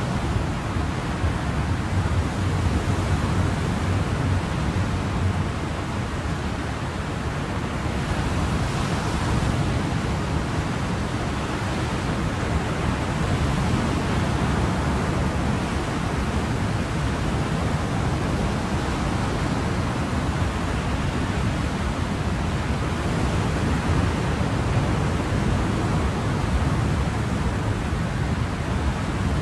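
Ocean surf: a steady, unbroken wash of waves, heavy in the low rumble, swelling slightly about eight seconds in.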